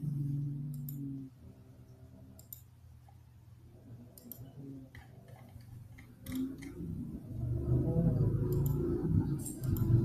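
Computer mouse clicks, a scattering of sharp ticks, over a low pitched hum that is loudest in the last couple of seconds.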